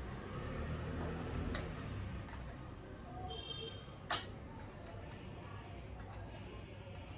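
A few scattered sharp metallic clicks and taps from a hand tool on the mounting bolts of a motorcycle top rack, the loudest about four seconds in, over a low background rumble.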